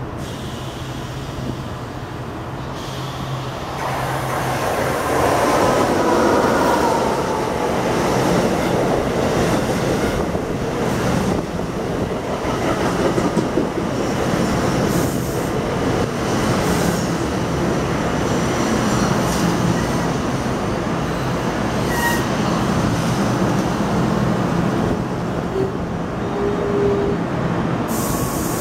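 NJ Transit train of Bombardier bi-level coaches, led by an ALP-46A electric locomotive, rolling into the station and past. The steady rumble of steel wheels on rail swells about four seconds in as the locomotive arrives. It carries repeated clicks over rail joints and a few brief high squeals in the second half.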